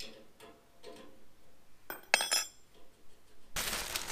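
Handling of a clip-on gas regulator and its hose: a sharp metallic clink with brief ringing about two seconds in, then a burst of plastic packaging rustling near the end.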